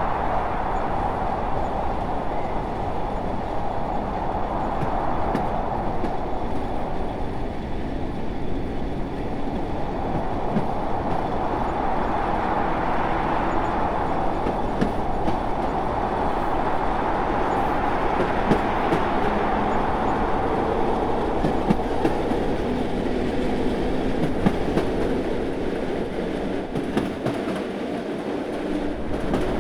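A train running along the rails: a steady rumble with light wheel clatter, swelling and easing slowly.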